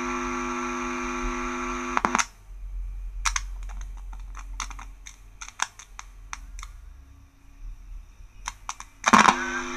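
The Panasonic radio cassette's loudspeaker gives out a loud, steady buzzing hum, a stack of even tones, that cuts off about two seconds in. A scatter of sharp clicks and crackles follows, and the hum comes back near the end as the board's controls are probed. The hum shows the amplifier is passing signal to the speaker while the faulty control is being tracked down.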